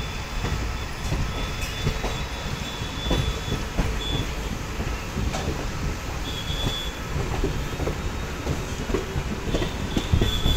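Passenger train coaches rolling slowly over the tracks: a steady low rumble of the wheels, irregular clanks over rail joints, and brief high-pitched squeals of wheels on the rails, several times, near the start, in the middle and near the end.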